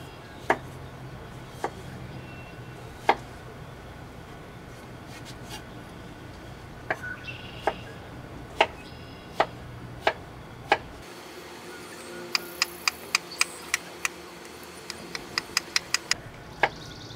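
Kitchen knife cutting raw potatoes on a wooden cutting board: separate knocks of the blade on the board every second or so, then, about twelve seconds in, a quick run of chops at about four a second, and a second run near the end.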